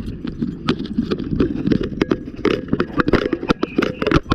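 Irregular knocking and clatter of a firefighter moving with his gear, over a steady low rumble.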